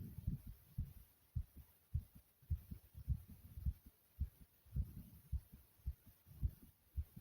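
A fast human heartbeat heard close up, low thumps coming nearly two a second, racing after exercise. Soft rushes of breathing swell in a few times.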